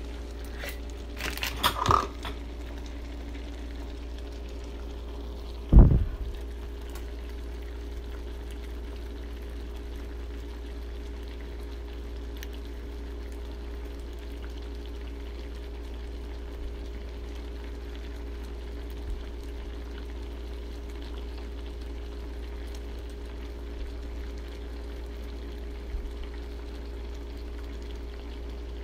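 Pot of spicy seafood noodle soup simmering, a steady bubbling hiss over a constant low hum. A few short knocks near the start and one loud thump about six seconds in.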